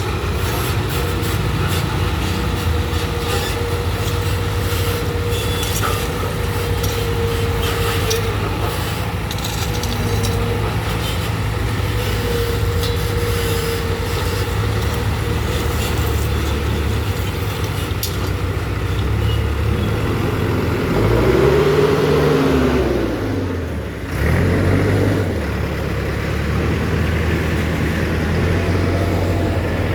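Diesel engines of road-construction machinery running steadily, with scraping and clicking through the first third. About two-thirds of the way in, an engine revs up and settles back down, briefly drops off, then runs on.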